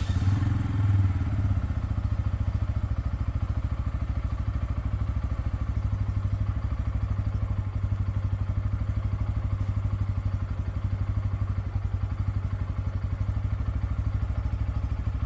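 Bajaj Pulsar N160's single-cylinder engine just started and idling steadily with an even beat, a little higher for the first second or so before settling. This is a warm restart, which the owner says does not bring the odd noise heard only at the day's first start.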